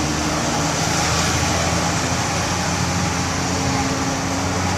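Vehicle engine running steadily with a low hum, amid the noise of road traffic.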